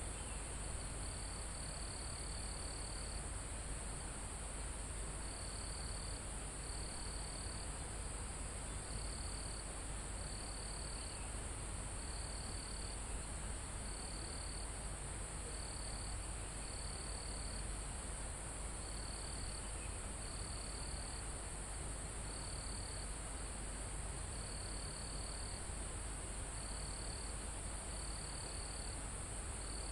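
Crickets and other insects calling in a forest: one continuous very high trill, with another insect at a lower pitch singing short bouts of about a second, repeated every couple of seconds, over a steady low rumble.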